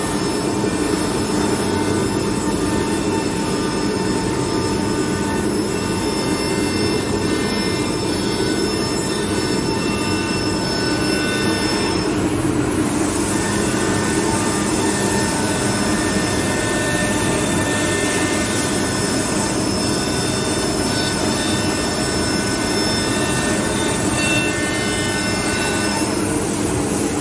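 Holztek Ht-R1M CNC nesting router cutting a fibreboard sheet, its spindle set to 18,000 rpm, giving a steady whine with several high tones over a rushing noise. The tones shift about halfway through as the cutter moves between cuts.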